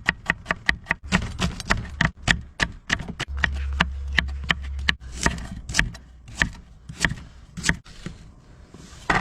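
A knife chopping through boiled cured pork ribs: a quick run of sharp chops, about four a second, then slower, spaced strokes.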